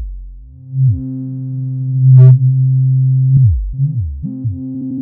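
Juno-style analog polysynth patch playing: a held low note with falling pitch swoops near the start and again three times near the end, and a short bright filter sweep about two seconds in.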